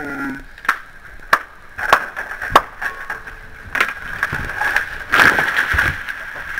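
The dead hybrid poplar's trunk cracks several times, with sharp single snaps, as the cut top breaks away, then the top crashes to the ground about five seconds in.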